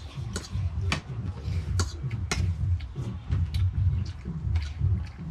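Cutlery clicking against a plate during a meal: sharp, irregular clicks, several a second at times, over a low, uneven rumble.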